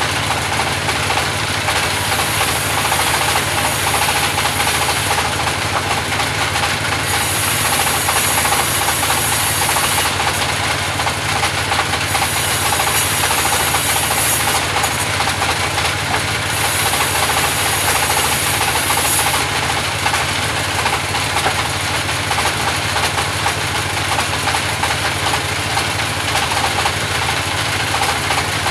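Band sawmill running steadily, its motor and blade loud, with a high hiss that rises and falls away four times, about two to three seconds each, as the blade cuts through the wood.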